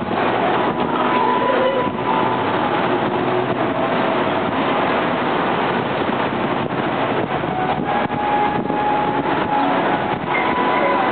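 Steady rushing hiss of the Bellagio fountain's water jets and falling spray.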